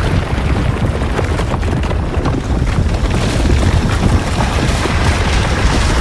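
Destruction sound effect: a continuous heavy rumble thick with rapid crackling impacts, like an explosion's blast breaking up into debris.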